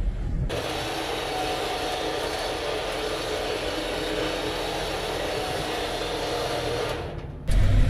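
A steady, even mechanical rushing noise with a faint hum in it, starting about half a second in and cutting off abruptly shortly before the end.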